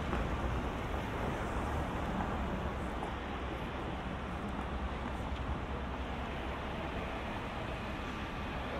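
Steady city street traffic noise: a continuous low rumble of cars and general urban din, with no single event standing out.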